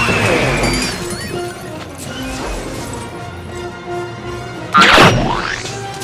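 Film score music with dubbed-in cartoon sound effects: a crash fading out at the start, and a loud swooping effect that sweeps down and back up about five seconds in.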